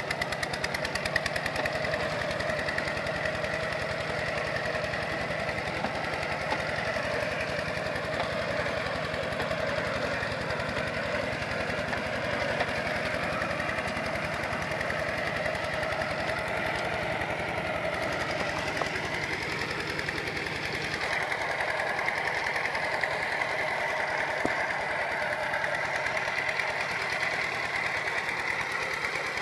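Kubota RT120 two-wheel walking tractor's single-cylinder diesel engine running steadily with a fast, even knocking beat while it drives the cage wheels through paddy mud. Its tone shifts slightly about two-thirds of the way through.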